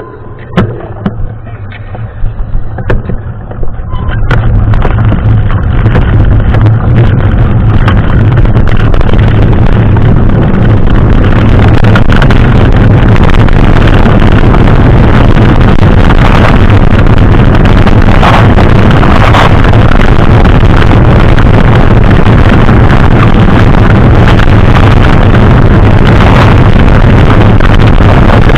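Wind buffeting the microphone of a camera on a moving mountain bike, with knocks and rattles from the bike over rough trail. It turns into a loud, steady rush about four seconds in and stays that way.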